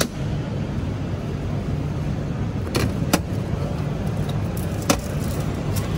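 Sharp knocks in a vending machine's dispensing tray as a fresh coconut is reached for and taken out: two close together about three seconds in, and one more about five seconds in. Under them runs a steady low rumble of road traffic.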